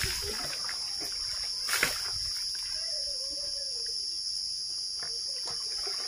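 Water scooped and poured from a plastic dipper, trickling and splashing into a plastic bucket, with a sharp knock about two seconds in. A steady high-pitched hum runs underneath.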